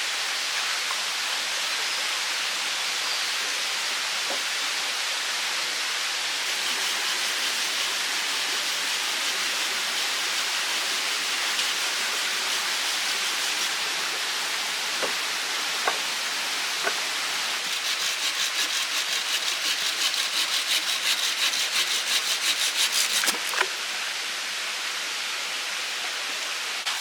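Steady rush of running water throughout, with a few sharp knocks. Over about five seconds in the second half, fast rhythmic strokes of a hand saw cut through wood.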